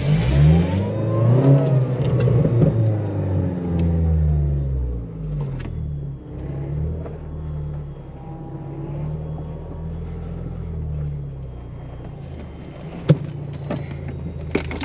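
Off-road SUV's engine revving up and down under load as it climbs a sand dune, then running steadier. A single sharp knock comes near the end.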